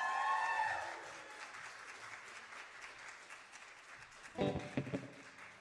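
Small audience applauding at the end of a song, the clapping loudest at first and then thinning and fading out. A held note dies away in the first second.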